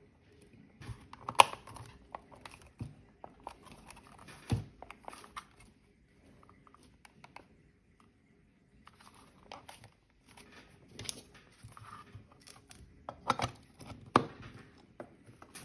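Scattered handling noises: irregular clicks and light knocks with some rustling, the sharpest a few single knocks about a second and a half in and again near the end.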